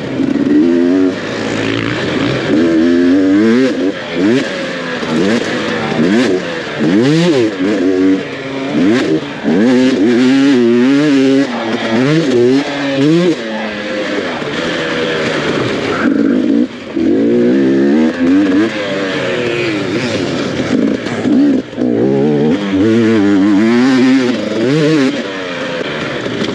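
Dirt bike engine heard on board during an enduro race, revving up and dropping again and again as the throttle is worked, with brief dips in loudness and a steady hiss over it.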